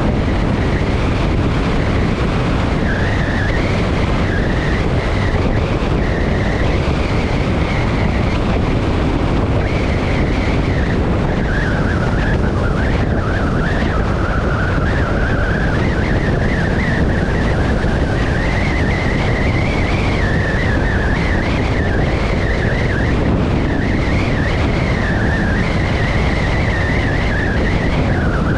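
Motorcycle on the move: steady wind and road noise under a droning tone that wanders slowly up and down in pitch as the engine speed changes.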